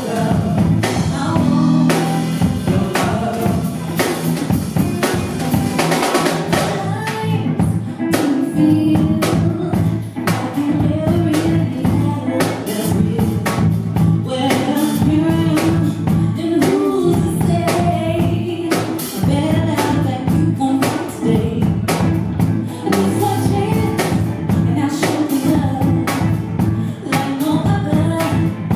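A singer's voice over a band with a drum kit keeping a steady beat.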